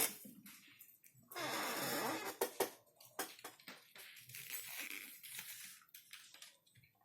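Handling noise from unboxing: a rustle of packaging about a second in, then scattered light clicks and taps that die away.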